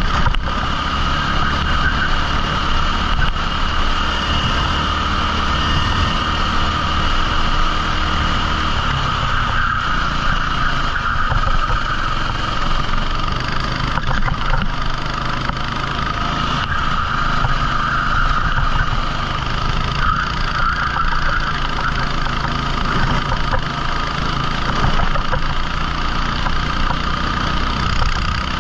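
Rental kart's 14 hp engine running steadily at low-to-moderate revs, with little change in pitch or loudness.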